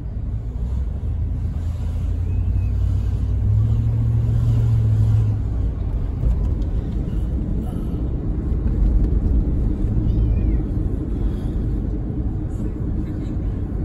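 Car driving along a road, heard from inside the cabin: steady low engine and tyre rumble, with a low hum swelling a few seconds in.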